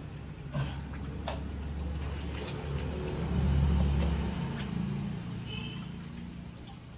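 Water splashing and dripping as hands work in a muddy, water-filled rock crevice, with scattered sharp clicks and a low rumble swelling about halfway through.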